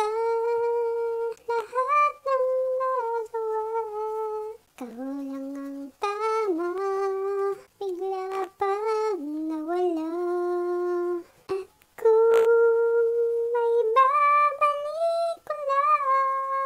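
A woman humming a slow, wordless tune in held notes that slide between pitches, with short breaks between phrases. A few light knocks come in between.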